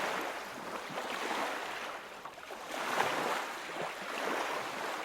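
Small waves washing and lapping on a lake shore, swelling and receding every second or two.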